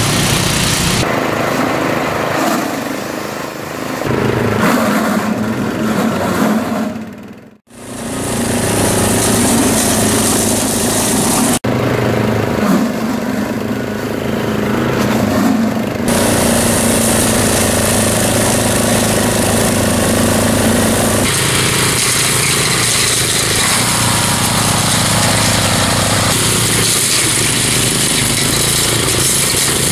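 Small petrol engine of an ATV-mounted Rammy brush cutter running steadily at working speed together with the quad's engine as it clears brush. The sound fades out briefly about a quarter of the way in and shifts in tone at a few points.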